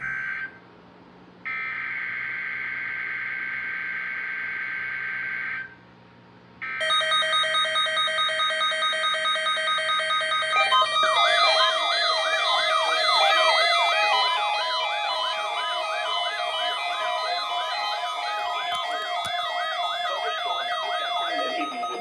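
A few seconds of a steady electronic data tone, then a bank of weather radio receivers set off their alert alarms together: stacked steady beeps, joined about eleven seconds in by a fast warbling siren.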